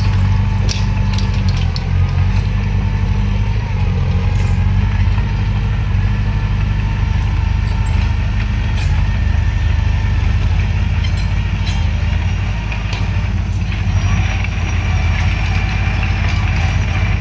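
Bulldozer's diesel engine running steadily under load, with a few sharp metallic clanks near the start and again about 9 and 12 seconds in.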